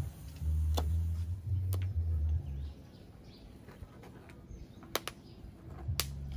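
A few knife chops on a wooden cutting board in the first two seconds, then two light knocks of a ladle against a cooking pot near the end. A low steady hum comes and goes underneath, and faint bird chirps are heard in the quiet middle stretch.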